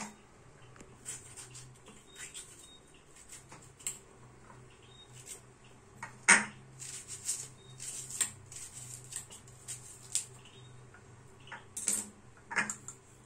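Kitchen knife and small stainless steel cup: scattered light taps and clinks as tomato and onion are cut by hand and dropped into the cup, with the loudest knock about six seconds in. A low steady hum runs underneath.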